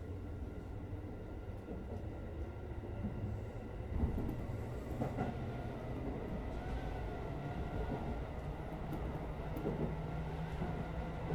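JR West 205 series electric commuter train running along the track, heard from on board: a steady low rumble of wheels on rail. A few sharp clacks come about four and five seconds in and again near the end, and a faint wavering whine rises in after about six seconds.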